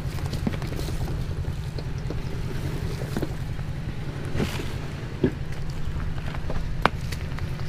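Vehicle engine running at low revs, a steady low rumble, with scattered sharp clicks and knocks over it, the loudest about seven seconds in.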